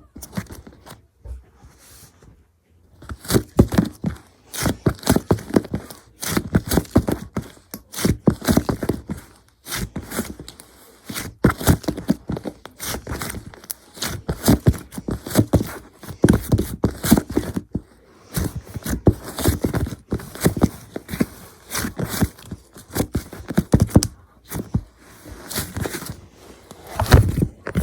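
Chocolate slime being squished and pressed by hand, making dense bursts of small wet popping and crackling clicks. The bursts start about three seconds in and come one after another with brief pauses.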